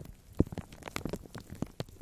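Fluffy makeup brush sweeping over plastic film wrapped tight around a microphone, close up: irregular crinkling and crackling of the film over a soft rumble, with one sharper pop about half a second in.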